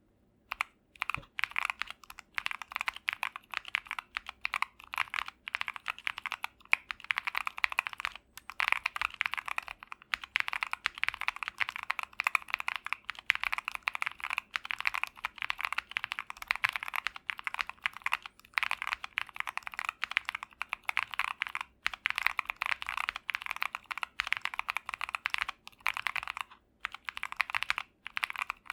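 Typing on an Akko ACR Pro acrylic-case mechanical keyboard: a fast, continuous run of key clacks with a few short pauses.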